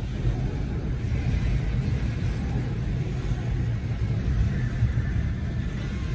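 Freight cars (covered hoppers and tank cars) rolling steadily past a grade crossing: a continuous low rumble of wheels on rail, heard from inside a stopped car.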